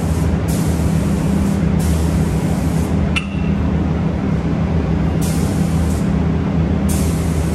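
Robotic spray gun hissing in four bursts of about a second each as it sprays finish onto cabinet doors, over a steady low machine hum. A single sharp click with a brief ring about three seconds in.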